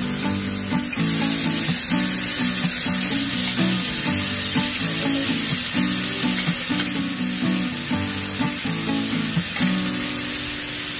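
Tofu dish sizzling steadily as it cooks, over background music.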